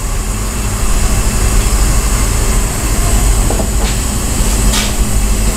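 Steady low rumble with an even hiss over it, background room noise, with a faint click or two near the end.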